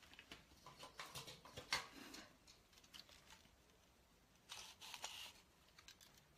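Faint rustling and crinkling of a burlap ribbon bow being handled, with small sharp clicks, in two short clusters about a second in and again near five seconds.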